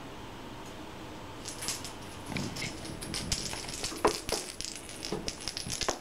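A cat batting a small toy around the floor: a run of irregular light clicks and rattles starting about a second and a half in, with a couple of louder knocks around four seconds.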